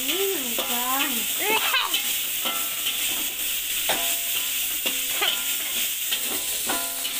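Meat stir-frying in a steel wok over a gas flame: a steady sizzle, with a metal spatula scraping through the food and striking the wok several times, each strike leaving a short metallic ring.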